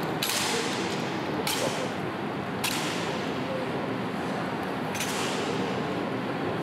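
Honor guards' drill: sharp strikes of boot heels and bayonet-fixed rifles on a stone floor, ringing out in a large hall, four strikes a second or more apart.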